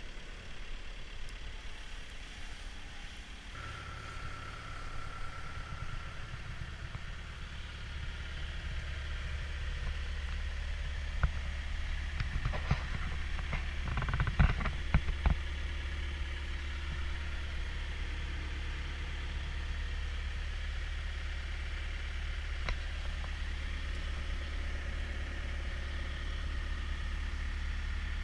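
CAT 242B3 skid steer's diesel engine running steadily, stepping up about three and a half seconds in with a short steady tone alongside. Several sharp knocks and clanks come in a cluster about eleven to fifteen seconds in.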